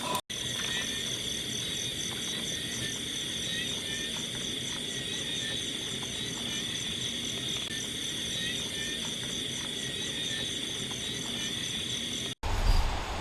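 Night insect chorus, likely crickets: a steady high trill with faster pulsing chirps above it. It cuts off abruptly near the end.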